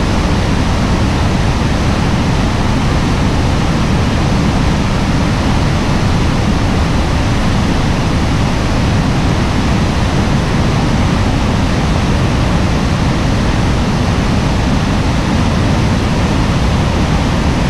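Upper Niagara River's class 6 whitewater rapids rushing. The sound is a loud, unbroken wash of water noise, heaviest in the low end.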